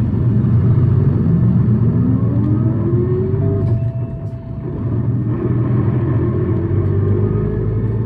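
City bus engine revving high under acceleration, a steady low rumble beneath a rising whine. The whine breaks off about four seconds in, as at a gear change, then climbs again.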